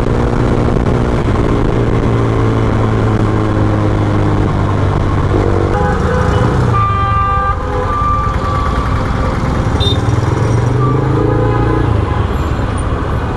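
Taro GP V3 motorcycle engine running with road noise as it rides in traffic, its note changing about six seconds in. Vehicle horns honk from about seven seconds in, one long blast and then shorter ones, with fainter honks near the end.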